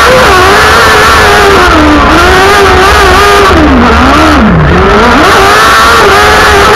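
Onboard sound of a kartcross buggy's motorcycle-type engine running hard at high revs, its pitch rising and falling as the throttle is worked. About four seconds in the revs fall away sharply and then climb back up.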